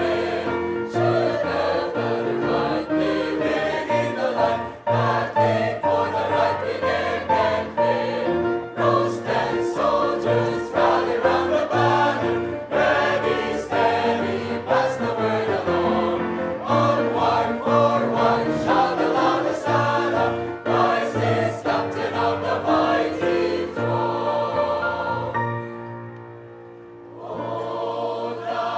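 Choir singing a hymn in sustained, full harmony. The voices drop to a soft passage about 25 seconds in, then swell again near the end.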